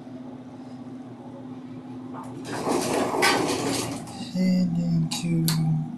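Otis elevator car arriving at a floor: a steady low hum while it travels, a burst of clattering mechanical noise about halfway through as it stops, then a low hum in two spells with clicks between as the door operator starts opening the doors.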